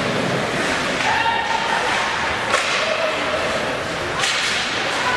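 Ice hockey play: a few sharp cracks of sticks on the puck and skates scraping the ice, over the steady din of the rink with players and spectators shouting.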